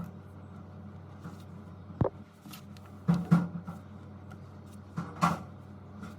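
A handful of sharp clicks and knocks of small hard objects being handled and set down, the sharpest about two seconds in and others grouped around three and five seconds in, over a steady low hum.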